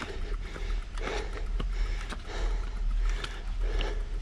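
Wind buffeting the camera microphone while cycling, a steady low rumble, with the rider's hard breathing in puffs about every second and a bit.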